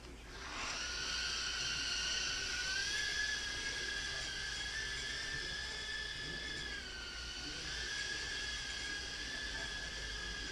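Blade Inductrix FPV mini quadcopter's brushed micro motors and ducted propellers spinning up to a rising whine, then holding a steady high whine as it flies. The pitch shifts up a little, dips briefly about seven seconds in and recovers as the throttle changes.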